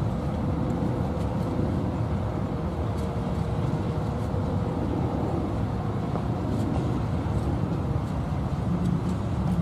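Freight train of open-top cars rolling past, a steady rumble of steel wheels on rail with a faint steady hum over it.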